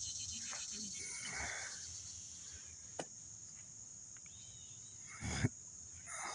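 Insects chirping in a steady high-pitched trill, with a sharp click about three seconds in and a louder thump just after five seconds.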